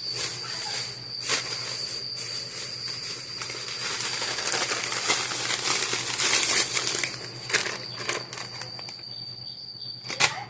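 Plastic grocery bags crinkling and rustling as they are handled, with many small crackles. A steady high-pitched whine runs behind it.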